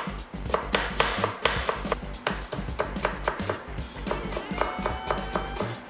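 Kitchen knife chopping turnip into long, thin strips on a plastic cutting board: quick, even taps of the blade on the board, about four a second. Background music plays throughout.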